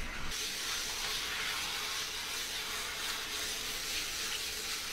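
Hand-held hose sprayer spraying water onto a dog's coat: a steady hiss that comes on sharply just after the start.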